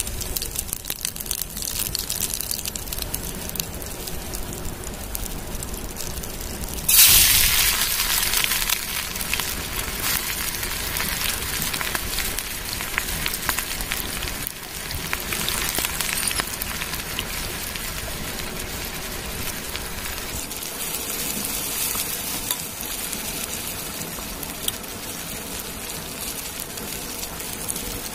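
Wood campfire crackling and hissing under a cooking pot, with a sudden louder sizzling hiss that starts about seven seconds in and eases off over several seconds.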